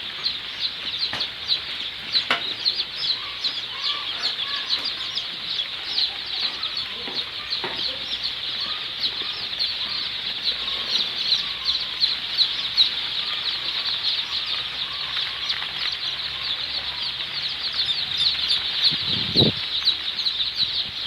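A brooding house full of Sonali chicks peeping continuously, a dense high-pitched chatter of many short chirps at once. A brief low thud sounds near the end.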